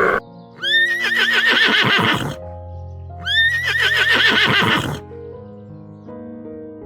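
Horse whinnying twice, each a high, wavering neigh of nearly two seconds, over soft background music with held keyboard notes.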